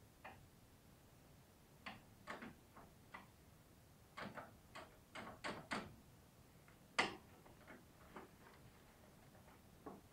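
Scattered light clicks and knocks of objects being handled, some in quick clusters, with the sharpest knock about seven seconds in.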